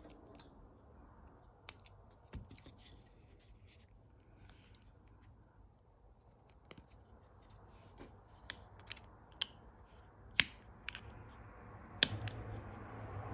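Small screwdriver tip scraping and clicking against a stuck 2032 coin-cell battery and the plastic key fob case as the battery is pried out. Scattered sharp clicks with light scratching, louder and more frequent toward the end.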